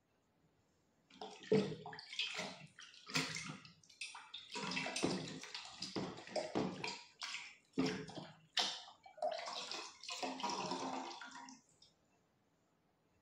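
Water sloshing and splashing in irregular bursts, starting about a second in and stopping about a second before the end.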